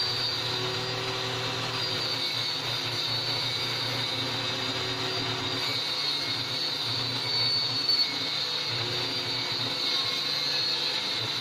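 A power tool's electric motor running steadily: a constant low hum under a high whine, with no change in speed.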